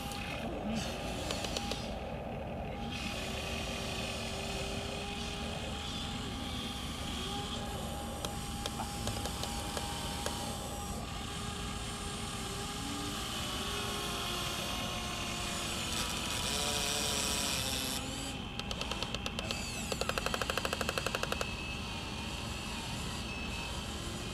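Small electric motors of remote-control Huina excavators whining, the pitch sliding up and down as the booms and buckets move. There are two short spells of rapid clicking a few seconds before the end.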